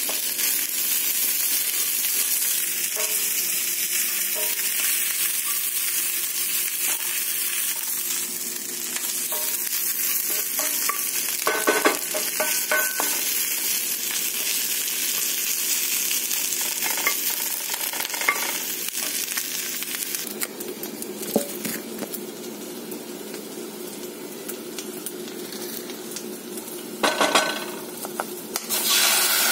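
Sliced red onion and green chilli sizzling in oil in a cast-iron skillet, a steady hiss, with a wooden spatula stirring them and clicking against the pan now and then. A brief knocking comes near the end.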